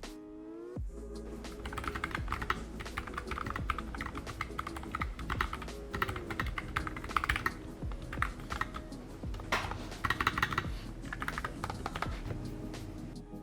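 Typing on a NuPhy Air75 low-profile mechanical keyboard with Gateron Brown switches: quick runs of keystroke clacks, with background music underneath.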